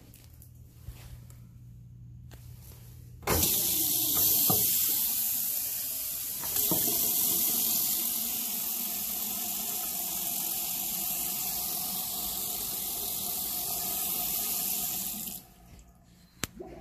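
Faucet running a stream of water into a ceramic sink bowl and down the drain, switching on about three seconds in and shutting off abruptly near the end, followed by a single sharp click.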